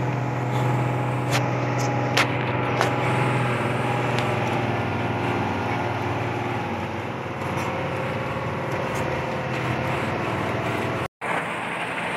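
Truck engine running, heard from inside the cab while driving on a dirt road, with a steady low hum that fades out near the end and a few sharp clicks in the first three seconds. The sound drops out completely for a moment near the end.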